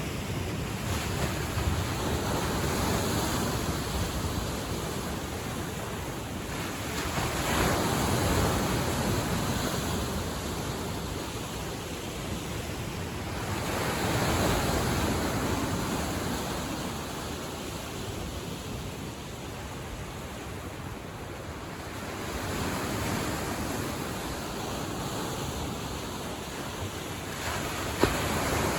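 Lake Michigan waves washing onto the shore: a steady rushing surf that swells and eases every six to eight seconds. A single sharp click comes near the end.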